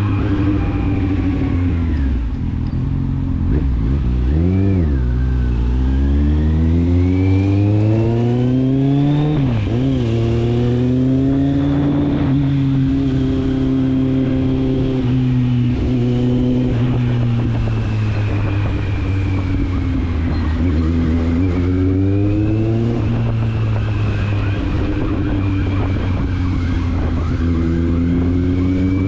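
Kawasaki Z750's inline four-cylinder engine and exhaust under way. The revs climb, drop sharply and climb again twice in the first ten seconds, hold steady for several seconds, fall off, then rise again near the end.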